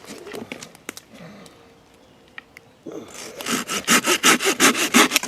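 Silky Gomtaro 210 mm pull-cut handsaw cutting a branch held locked between two other branches. A few light clicks come first, then about three seconds in it breaks into quick, even sawing strokes, the loudest sound here.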